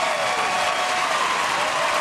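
Large studio audience applauding after a piano performance, dense steady clapping with a few voices calling out over it.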